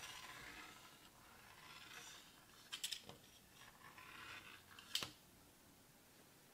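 A blade drawn through croissant dough along a plastic ruler, giving soft scraping strokes several times. Two sharp clicks come about three and five seconds in, the loudest sounds. It falls near silent after the second click.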